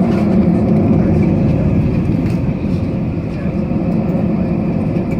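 Steady low rumble of a jet airliner heard from inside the passenger cabin: engine and airflow noise, even and unbroken.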